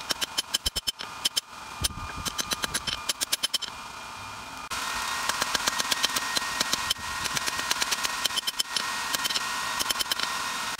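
Hand hammer striking red-hot lawnmower-blade steel on a railroad-rail anvil, in quick runs of ringing blows several a second. A steady blowing noise runs underneath and gets louder about halfway through.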